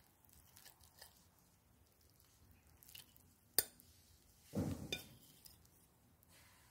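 A metal fork cutting into a soft baked pear pudding and clinking on a ceramic plate: faint taps, one sharp clink about three and a half seconds in, and a short scuff a second later.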